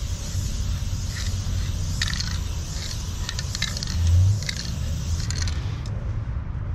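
Aerosol spray paint can in use: a hiss with scattered metallic clicks and rattles, stopping shortly before the end, over a steady low rumble.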